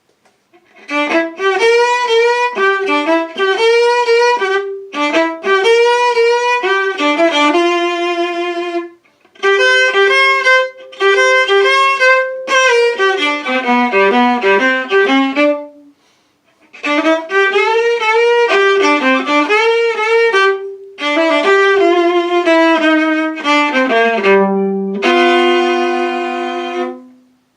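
Solo viola, bowed, playing a blues passage: phrases of notes with sliding, bent pitches, broken by short pauses about a third and about halfway through, and ending on a long held note.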